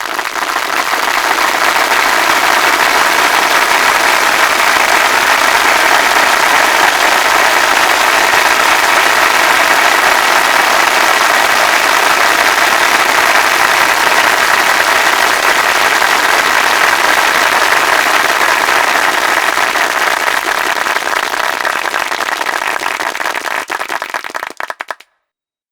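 A large crowd of about 600 people applauding: dense, steady clapping that swells in the first couple of seconds, thins out near the end and stops abruptly.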